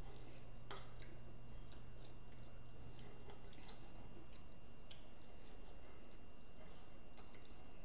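Faint, irregular small clicks of a knife and fork against a plate, with the mouth sounds of eating, over a steady low hum.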